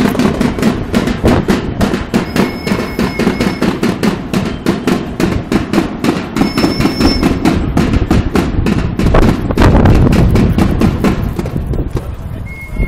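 Drums beaten by marchers in a fast, even beat, with a whistle blown in long steady blasts a few times.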